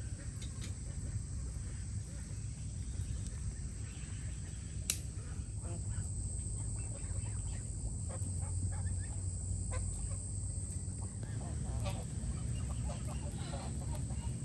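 Poultry calling now and then over steady outdoor background noise, with a single sharp click about five seconds in.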